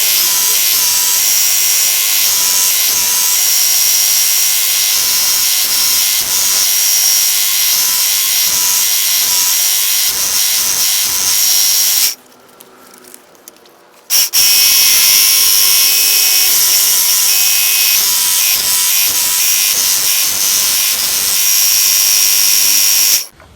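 Work Sharp Ken Onion Edition belt knife sharpener running with a blade held to its stropping belt, a steady motor-and-belt whir with a high whine. It shuts off about halfway through, starts again two seconds later, and shuts off just before the end.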